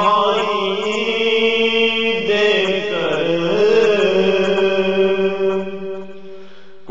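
A male voice singing an Urdu naat in a slow, ornamented chant over a steady held drone. About six seconds in the melody trails off, leaving only the drone.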